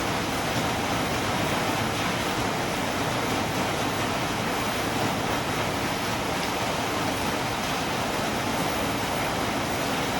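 Steady rain falling, an even unbroken hiss with no distinct drops or thunder.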